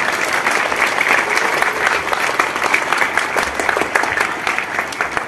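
A large crowd clapping in a round of applause, dense and steady, beginning to die down near the end.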